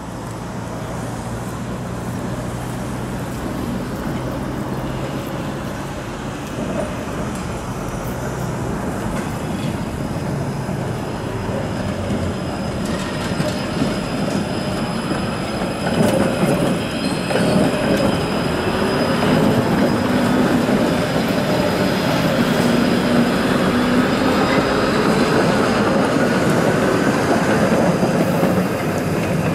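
Coupled Konstal 105N-type trams running on the rails, growing louder from about halfway through as they draw near and pass, with the steady rumble of wheels on track.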